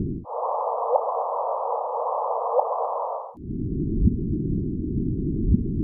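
Electronic sonification presented as the sound of two black holes colliding. A low band of noise switches to a higher hiss with a steady tone under it about a quarter second in, then drops back to the low band at about three and a half seconds. A few faint, brief rising chirps sound through it.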